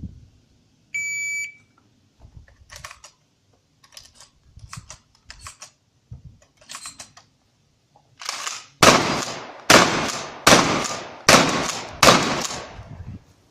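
Electronic shot timer gives a short start beep about a second in. After several faint clicks and knocks, a shotgun fires five loud shots roughly 0.8 s apart near the end, each with a short echo.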